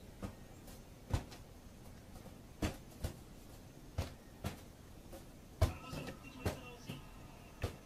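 Rubber balloon being batted by hand, a series of about ten short thumps at irregular intervals.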